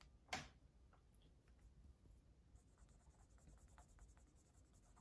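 Faint strokes of a dry-erase marker writing on a whiteboard, with one sharper tap about a third of a second in.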